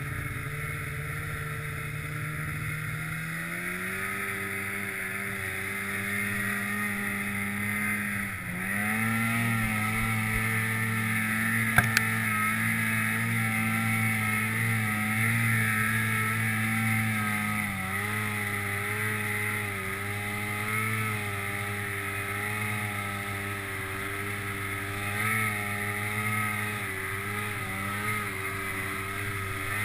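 Polaris Pro RMK snowmobile's two-stroke engine running under throttle while side-hilling on hard-packed snow. Its pitch rises a few seconds in, dips briefly and climbs again before the middle, and settles lower after the middle. Two sharp clicks come close together in the first half.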